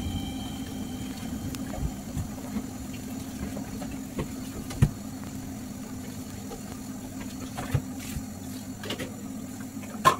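Dishes and utensils knocking now and then as they are washed at a kitchen sink, over a steady low hum.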